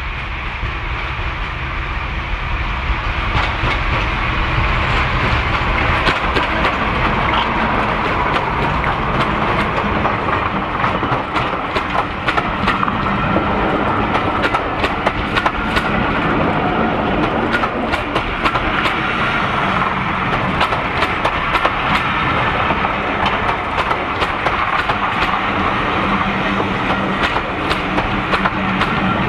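Diesel locomotive running up and past with a passenger train, its engine rumble growing louder over the first few seconds. Then a long run of coach wheels clicking over the rail joints as the carriages roll past.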